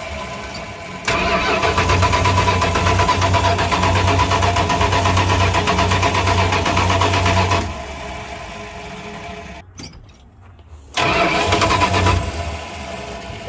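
1976 Dodge D200 pickup's engine firing up on gasoline squirted in to prime it, running for about six seconds, then dying away; it catches again briefly near the end and fades out. It runs only on the primed fuel, which the owner reads as the engine not running off the fuel pump.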